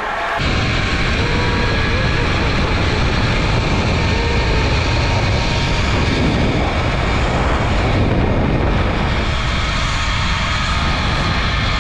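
Wind rushing and buffeting the camera microphone while riding a zipline at speed, with the trolley running along the steel cable as a faint steady whir underneath. The rush jumps up about half a second in and then holds steady.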